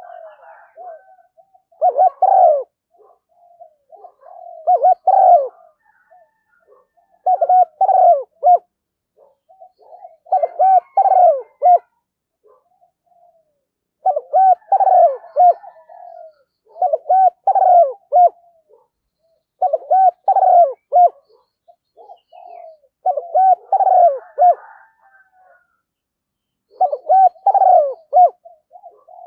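Spotted dove cooing. Short phrases of a few low coos are repeated about every three seconds, nine phrases in all. It is a lure call of the kind played to get caged doves calling.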